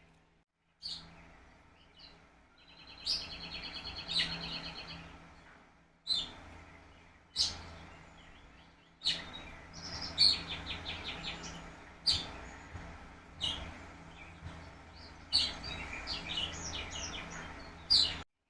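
Songbirds chirping and calling, with quick trilled phrases about three seconds in and again around ten seconds, over a faint low steady hum.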